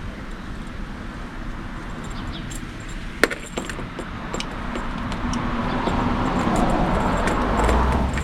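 Hands working at a cable tie on the smoke tester's power supply: scattered light clicks and rattles, with one sharp click about three seconds in and a rustling that swells toward the end.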